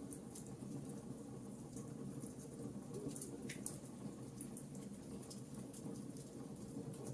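Wood fire crackling in a fireplace: irregular small sharp pops and snaps over a low steady rush of flame.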